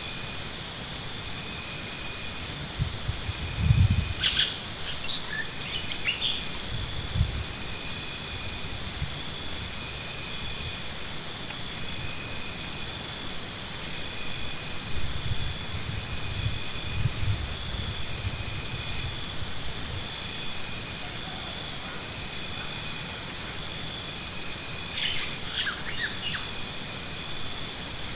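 Cricket-like insect chirping: a high, rapidly pulsed trill in long trains broken by short pauses. A few low thuds come through underneath, one about four seconds in and several around the middle.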